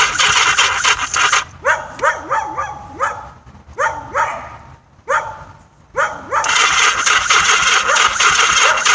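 Yamaha XS1100 inline-four being cranked on its electric starter without firing, a no-start the owner puts down to a weak battery. The cranking stops about a second and a half in, and a string of short rising whines follows for about five seconds. The cranking then resumes near the end.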